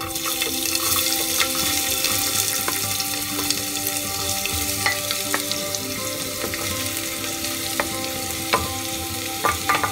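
Chopped onions sizzling as they drop into hot oil in an aluminium pressure cooker, with a wooden spatula scraping and tapping them off a plate; a few sharper taps come near the end.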